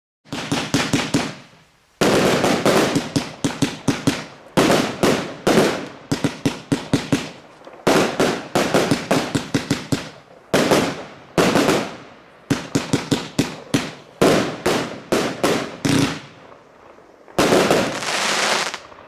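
TROPIC TB82 36-shot firework battery going off in quick volleys of sharp bangs and crackles, with brief pauses between volleys. It ends in a denser, hissing crackle.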